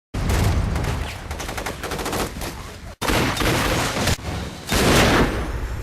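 Rapid bursts of automatic gunfire. They break off abruptly about three seconds in, and a second stretch of heavy, denser gunfire follows.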